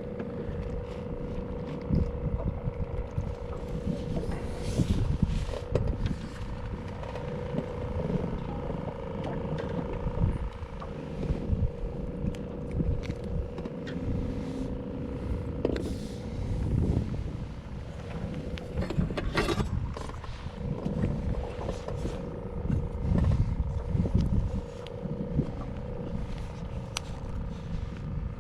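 Boat's trolling motor running steadily with a constant hum, under irregular knocks and rubbing from handling in the boat.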